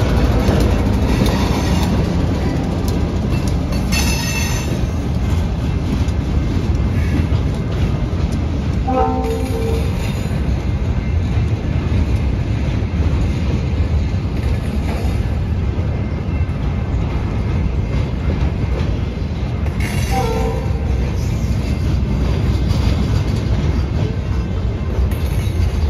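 Diesel freight train rolling past: a steady, loud rumble of locomotives and loaded flatcars on the rails. Two brief higher tones rise above it about 9 and 20 seconds in.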